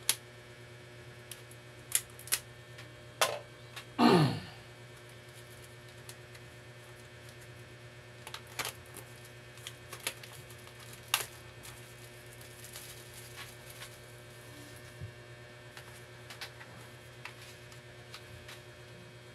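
A sealed retail SSD package being opened by hand: scattered sharp clicks and packaging noises, with one louder, longer sound with falling pitch about four seconds in. A steady mains hum runs underneath.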